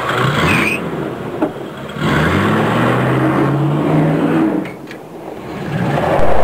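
A small engine running over a rough hiss, its hum rising in pitch for a couple of seconds in the middle. It changes abruptly to a steady low hum near the end.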